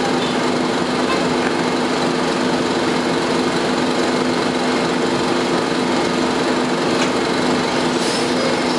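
Inside the cabin of a 1998 Nova Bus RTS transit bus: its Detroit Diesel Series 50 engine runs steadily at an unchanging pitch, under the continuous drone of the bus's air conditioning.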